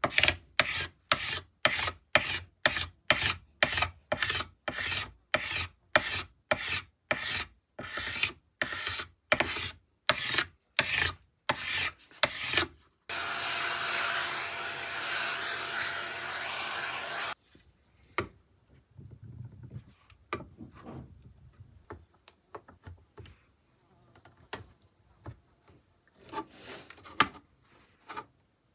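Steel scraper scraping an ebony fretboard in regular strokes, about two a second. Near the middle a vacuum nozzle runs steadily for about four seconds, followed by scattered light taps and knocks.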